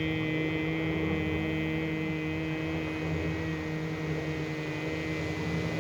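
A man's voice holding the "chruee" water healing sound as one long, steady, humming tone on a slow exhale, fading in its upper ring over the first few seconds.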